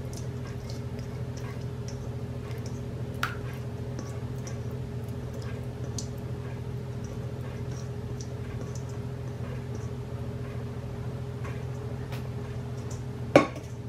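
Spoon scraping thick creamy sauce out of a metal bowl onto broccoli in a glass baking dish: faint scattered ticks and clicks over a steady low hum, with one sharper click about three seconds in and a loud knock near the end.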